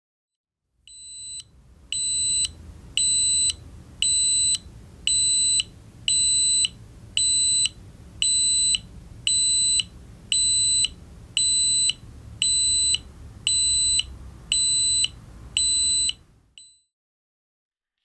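Carbon dioxide meter's alarm beeping in a steady, high-pitched repeating pattern, about one beep a second, then stopping near the end, with a low rumble underneath. It warns of a high CO2 level in the kitten nursery, apparently raised by a kitten sleeping in front of the meter and breathing on it.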